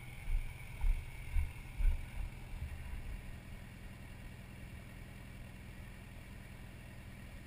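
Motorcycle engine idling steadily, with gusts of wind buffeting the microphone in the first couple of seconds.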